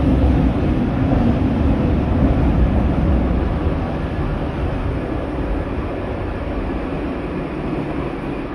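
SkyTrain metro train pulling into an underground station, its running rumble and low hum fading steadily as it slows to a stop.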